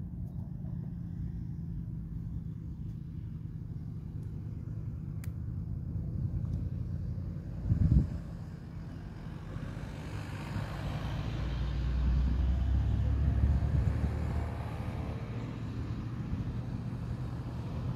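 Distant helicopter in flight: a steady low drone that swells into a louder rumble and whine from about ten seconds in, easing a little near the end. A single knock comes about eight seconds in.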